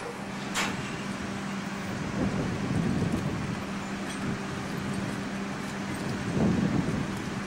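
An engine running steadily with a low hum, swelling louder twice: about two to three seconds in and again near the end.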